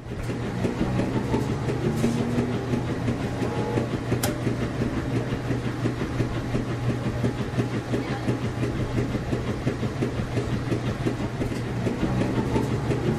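Washing machines running: a steady low hum with a fast, even mechanical clatter.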